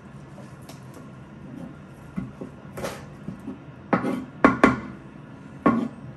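Kitchen knife knocking on a cutting board while chopping green onions: a handful of irregular sharp knocks, the loudest a quick pair a little past the middle.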